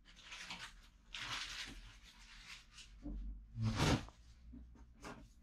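Plastic cup scooping and scraping flour in a stainless steel bowl: several short gritty rustles, with a louder scrape and thud about two-thirds of the way through.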